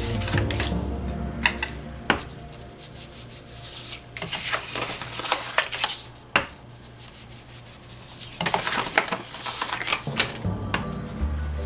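Cardstock envelope being handled and rubbed on a craft mat: paper rustling and scratchy rubbing strokes, with scattered light taps and clicks.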